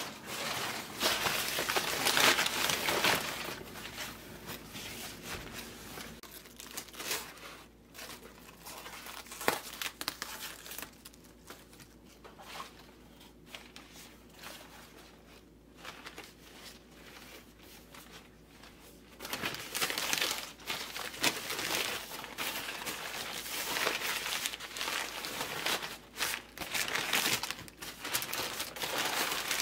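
Sheets of newspaper crumpling and rustling as they are handled around a head of napa cabbage. The crinkling is loud at first, drops to occasional small rustles through the middle, and picks up again for the last third.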